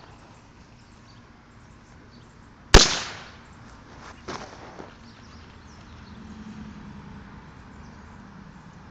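A single loud firework bang about three seconds in, with a short echoing tail, followed by two fainter pops a second or two later.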